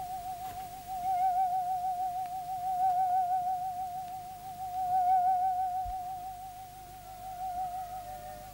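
Background music: one long held note with a quick, even vibrato, swelling louder and softer, with further held notes joining near the end.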